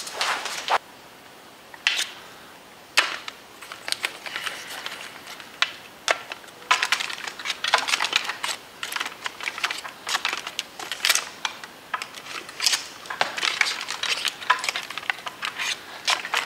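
Irregular sharp clicks and light taps of a thin metal blade point knocking and scraping against the hard plastic ribs of an anatomical skeleton model. They come in ones and twos at first and turn into a dense patter about seven seconds in.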